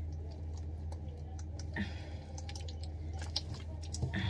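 Small wet squelches and clicks of a hair-treatment liquid being squeezed from its bottle and worked into wet hair by hand, scattered irregularly over a steady low hum.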